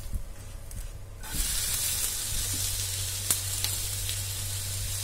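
Semolina (rava) uttapam frying on a hot nonstick pan. A loud, steady sizzle starts suddenly about a second in, as the pancake is flipped so its tomato, onion and capsicum topping lands face down on the pan. A few sharp crackles sound through the sizzle.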